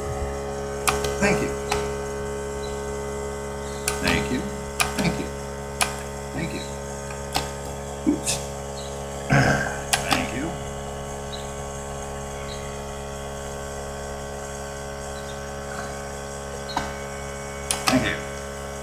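Lever-operated mechanical tally counter clicking over as it is pressed, a series of sharp clicks a second or more apart, most in the first half and another near the end, while the counter advances one number per press. A steady hum runs underneath.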